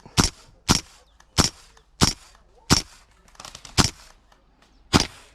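Gas blowback airsoft rifle firing single shots, seven sharp cracks in about five seconds at an uneven pace.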